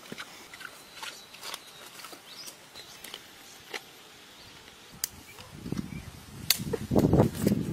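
Leafy plant stems rustling and snapping as they are picked by hand, with a few sharp clicks, louder in the last two seconds. Before that, faint outdoor ambience with scattered ticks.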